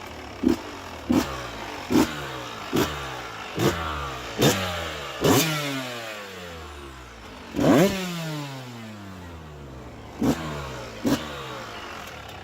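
2012 Yamaha YZ125's two-stroke single-cylinder engine running with the throttle blipped again and again: each blip is a quick rev that falls back to idle, about one a second at first, then a longer rev a little past halfway, and two more near the end.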